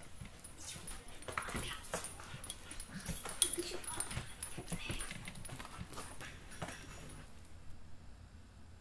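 A dog whimpering in short, irregular bursts that stop about seven seconds in.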